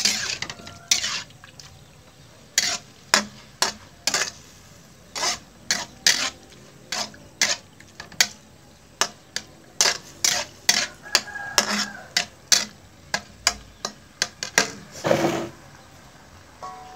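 A spatula repeatedly scraping and knocking against a frying pan as pieces of fresh squid are stirred in hot oil, with a faint sizzle underneath. The strokes come in irregular sharp scrapes, about one or two a second, with a longer one about fifteen seconds in.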